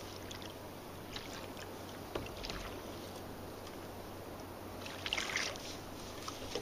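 Sea water lapping against a fishing kayak's hull, with a few brief sharper splashy sounds about two seconds in and again around five seconds in.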